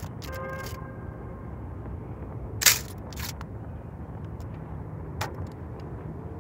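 Dry branches snapping as they are broken by hand for firewood: a loud crack about two and a half seconds in, a fainter one just after, and another near the end, over a steady low rumble.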